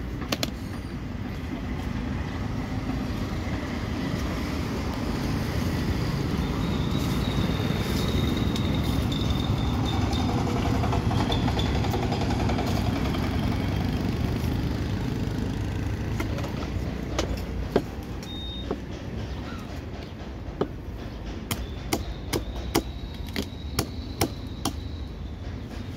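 Low rumble of market street traffic that swells through the middle and then eases off. Over the last third comes a run of sharp, uneven knocks: a cleaver striking a rohu on a wooden log chopping block.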